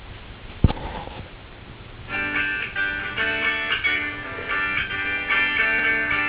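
A single sharp knock under a second in, then plucked guitar music starting about two seconds in and carrying on.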